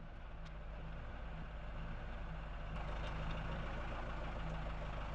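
An engine idling with a steady low hum, getting slightly louder about three seconds in, with a few faint clicks.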